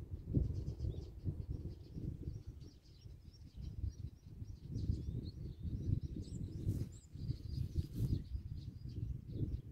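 Wind buffeting the microphone in uneven gusts, the loudest sound, with small songbirds twittering and chirping steadily behind it.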